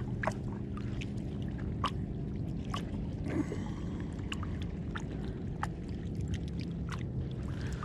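A hand swishing in the water at the side of a kayak, with small splashes and scattered drips over a steady low rumble of water and wind.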